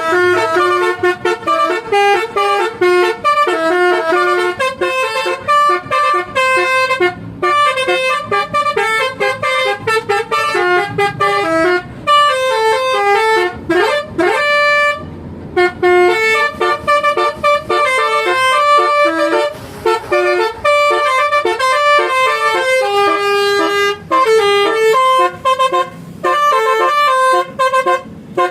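Multi-tone 'telolet' bus horn playing quick, tuneful runs of notes, with a sliding swoop in pitch about halfway through.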